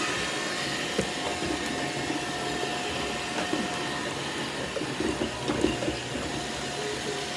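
A vacuum cleaner running steadily: an even motor hum with a constant whine, and a faint voice sounding a few times over it.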